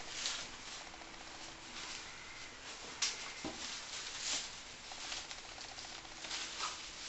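Soft rustling of a small fabric gear bag being handled and opened, with a light click about three seconds in.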